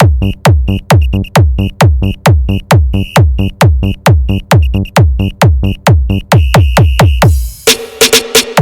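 Loud electronic dance remix played through a mobile sound system for a sound check. A booming kick drum with a falling pitch pounds about three to four times a second under short high synth stabs. Near the end the steady kick drops out for a break with a held tone and a wash of noise.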